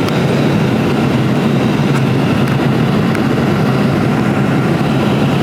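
Steady roar of a jet airliner's cabin in flight: engine and airflow noise, even throughout.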